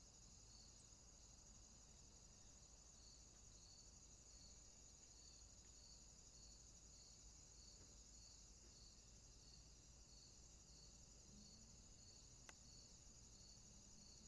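Faint insect chorus: a steady high trill with a softer chirp repeating about twice a second, and a single faint click near the end.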